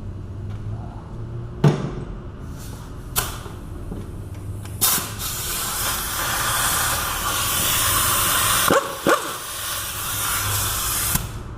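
A hub bolt is broken loose with a ratchet and 13 mm swivel socket: a couple of sharp metallic clicks. Then a loud, steady hiss of air or spray runs for about six seconds and cuts off near the end.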